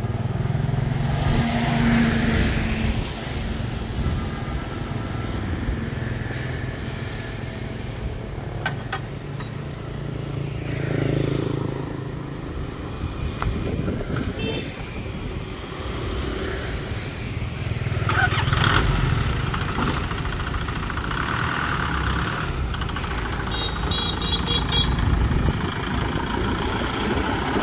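Small Cửu Long dump truck's diesel engine running at idle, with motorbikes passing on the road. Near the end the truck pulls away.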